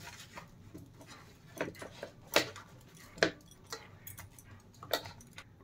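Eggplant slices being tossed and rubbed by hand in a plastic bowl, giving a few soft, irregular knocks and clicks about a second apart as the pieces bump each other and the bowl.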